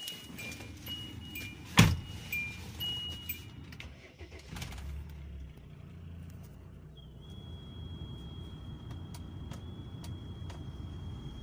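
Ssangyong Rexton's 2.7-litre common-rail turbodiesel starting from the key and settling into a steady idle, heard from inside the cabin. A two-tone dashboard warning chime beeps through the first few seconds, a sharp knock comes about two seconds in, and a faint steady high whine sets in about seven seconds in.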